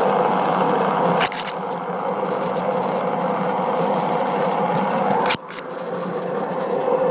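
LGB garden-railway model railbus running along the track, a steady hum and wheel rumble. Two pairs of sharp clicks, about a second in and again after about five seconds, as the wheels pass over rail joints.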